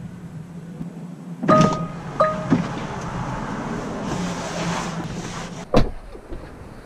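Two short electronic chimes from a Tesla Model 3's cabin, one about a second and a half in and another soon after, each a clean two-note tone, over a steady low hum. A rush of noise swells in the middle, and near the end there is a single sharp knock.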